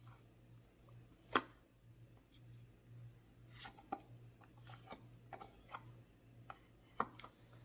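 Scattered light clicks and knocks of kitchen items being handled and set down, the sharpest about a second and a half in, over a faint steady low hum.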